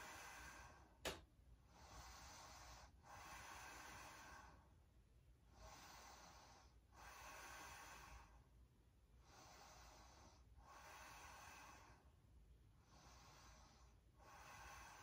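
A woman breathing faintly and evenly as she rests face down after a fast yoga flow, each breath lasting one to two seconds, about seven in all. A single sharp click about a second in.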